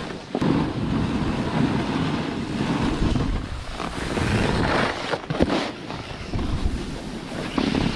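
Snowboard sliding and scraping over packed snow, a rushing noise that swells and eases with each turn, mixed with wind buffeting the action camera's microphone.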